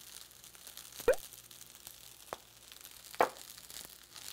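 Wooden spatula stirring fried rice in a nonstick frying pan: soft rustling of the rice, with two short, sharp scrapes of the spatula, one about a second in and one about three seconds in.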